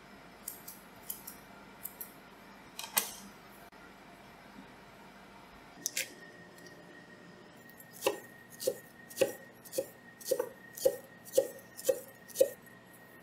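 Chef's knife chopping green onions on an end-grain wooden cutting board: a steady run of about ten crisp cuts, roughly two a second, each landing with a knock on the wood, in the last five seconds. Earlier there are only a few scattered light clicks and knocks.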